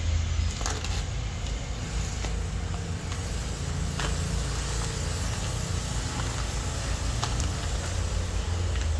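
A few sharp plastic crackles as a puppy chews a clear plastic cup, over a steady low rumble.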